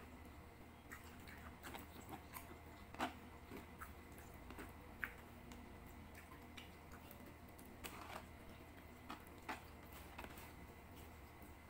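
Bare fingers gathering and pressing sticky cooked rice against a plastic tray: faint, irregular wet clicks and taps.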